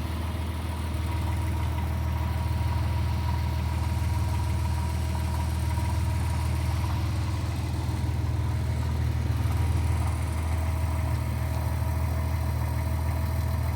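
1997 Porsche Boxster 2.5's flat-six engine idling steadily, with the rattle that the owner puts down to a failing water pump.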